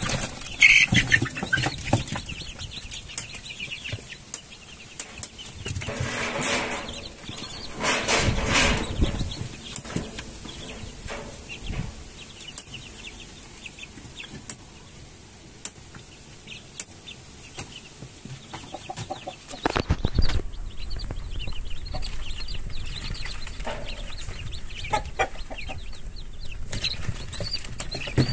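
Young Rhode Island Red chickens clucking and moving about, with two louder stretches of wing flapping around six and eight seconds in.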